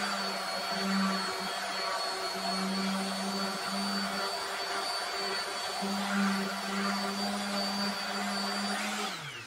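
Random orbital sander fitted with a cut-open sock as a buffing pad, running steadily while it buffs board butter into a wooden cutting board: a constant hum with a thin high whine above it. The motor winds down about nine seconds in.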